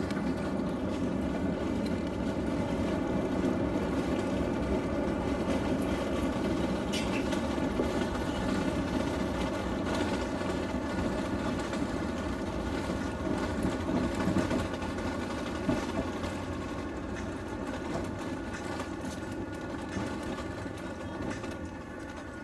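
Airbus A350-900 heard from inside the cabin during the landing rollout: a loud, steady jet-engine roar mixed with runway rumble. It grows gradually quieter over the second half as the aircraft slows.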